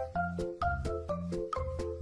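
Background music with a steady, bouncy beat and short repeated notes.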